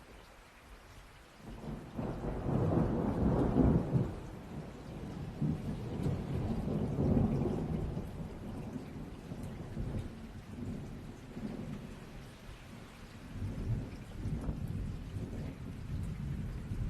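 Steady rain with a long roll of thunder. The thunder starts about a second and a half in, is loudest over the next couple of seconds, swells again and then rumbles on more quietly to the end.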